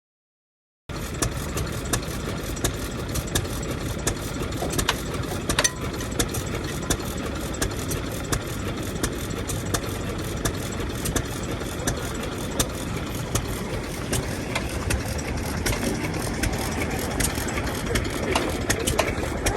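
Daikin DS-type two-cylinder kerosene engine running steadily, cutting in about a second in, with sharp ticks and knocks scattered through the running sound.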